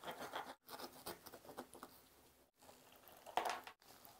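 Knife cutting through a giant hamburger's bun and fillings, then the cut piece being pulled apart: quiet crackles and soft scrapes, with a louder crackle about three seconds in. The sound drops out briefly a few times.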